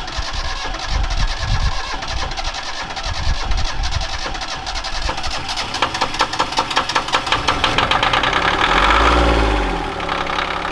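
Rebuilt three-cylinder sailboat diesel engine cranking over on the starter with a quickening rhythmic beat, then catching: near the end it revs up and comes back down as the full throttle is pulled back.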